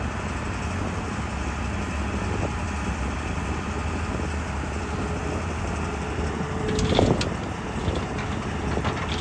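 JCB 3DX backhoe loader's diesel engine running steadily at work. About seven seconds in a brief whine leads into a louder burst of clanks, with a few more clanks near the end.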